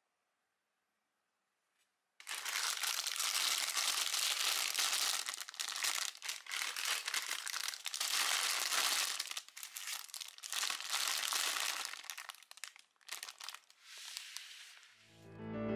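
Sealed plastic bags of Lego bricks being handled and crinkled, starting about two seconds in, in uneven spells with short pauses, the bricks shifting inside. Piano music comes in near the end.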